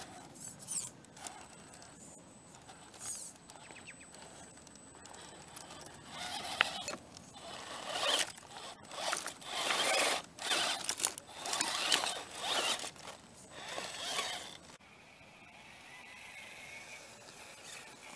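Electric motor and gears of a radio-controlled Axial SCX10 scale rock crawler whirring in a run of short bursts as the throttle is pulsed over rocks, loudest around the middle, then a fainter steady whine near the end.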